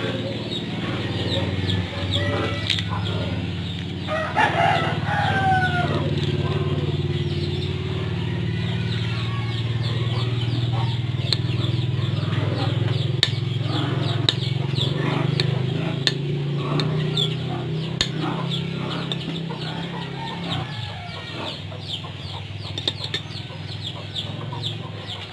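Chickens clucking, with a rooster crowing once about four to six seconds in. Under them a steady low hum that stops near the end, and many small ticks and scrapes from a metal spoon working the cracked shells of salted eggs.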